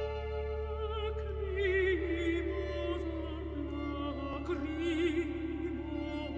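Operatic singing: long held notes with a wide vibrato, the melody stepping down in pitch, over a steady low hum.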